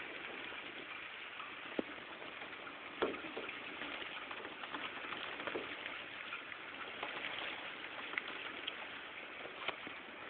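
Heavy rain falling steadily, with scattered sharper drops ticking against a window pane.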